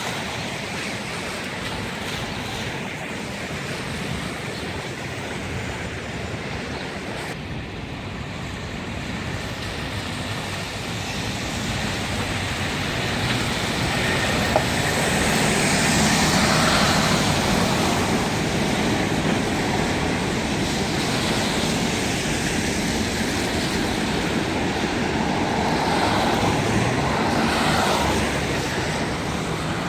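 City street traffic: a steady wash of passing cars, louder as vehicles pass about halfway through and again near the end, with one sharp click midway.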